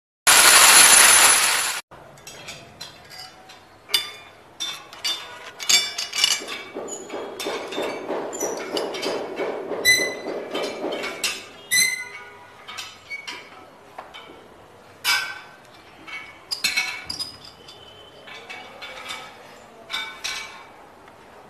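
Metal clinks and clicks of a steel bracket, washers and nuts being fitted onto wall anchor bolts and worked with a tool, some strikes ringing briefly, with a stretch of scraping in the middle. Near the start a loud burst of noise lasts about a second and a half.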